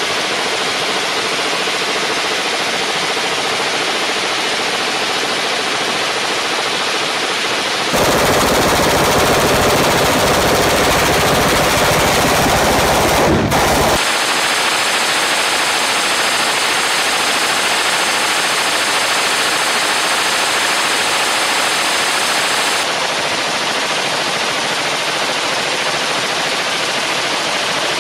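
Belt-fed light machine gun firing long, unbroken bursts of automatic fire, the shots running together into a continuous racket. This is sustained fire that heats the barrel red-hot, with the sound changing abruptly a few times between cuts.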